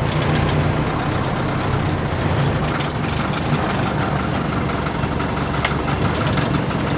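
Csepel D-352 fire truck's engine running steadily while driving, heard from inside the cab, with a few sharp clicks and rattles over the low, even engine sound.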